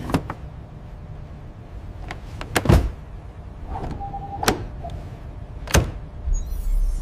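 Sharp clicks and thunks of an aluminium case being handled and shut, the heaviest about a third of the way in. A short electronic beep comes from its fingerprint lock a little past halfway, over a low hum.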